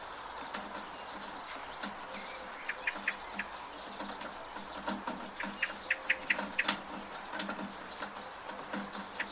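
Steady rain with drips from a gutter, while small birds chirp in short runs of quick high notes, once about three seconds in and again, louder, around six seconds in.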